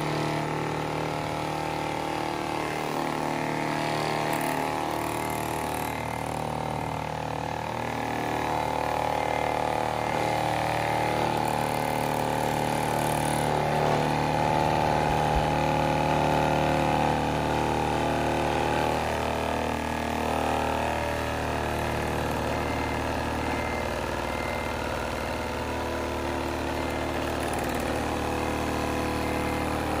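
Radio-controlled scale truck's engine sound idling steadily, growing a little louder about halfway through.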